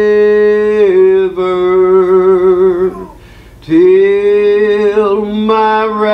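A man singing a slow hymn solo, holding long notes, with a short pause for breath about three seconds in.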